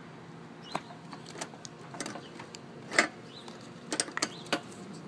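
Scattered light clicks and knocks of a hand handling a GY6 scooter carburetor and its metal fittings, the loudest about three seconds in and a quick cluster near the end.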